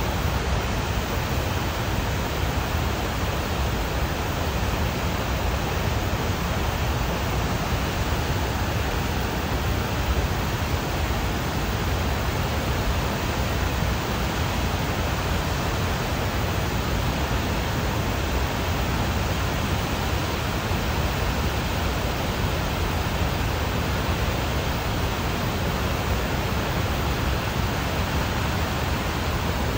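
Blue Earth River in flood, a torrent of whitewater pouring past the Rapidan Dam: a steady, heavy rush of water that does not let up.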